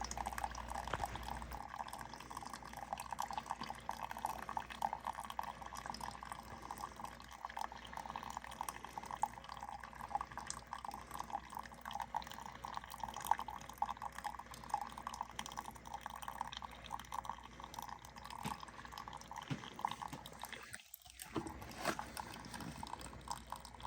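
Keurig single-serve coffee maker brewing a K-Cup, hot coffee streaming and dripping into a mug with a low, steady trickle. The sound drops out briefly about three seconds before the end.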